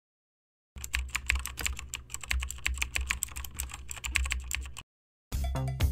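Rapid keyboard typing, a quick run of clicks lasting about four seconds. After a short gap, music starts near the end.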